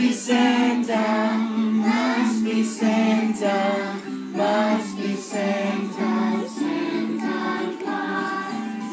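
A group of young children singing a Christmas song together, with music accompaniment.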